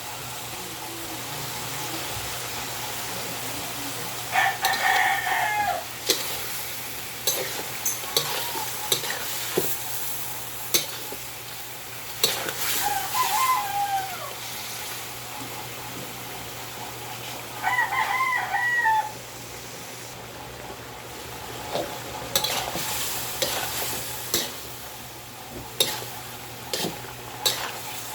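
A spoon stirring food in a cooking pot, clinking and scraping against the metal, over a steady sizzle. A rooster crows three times, about four, thirteen and eighteen seconds in.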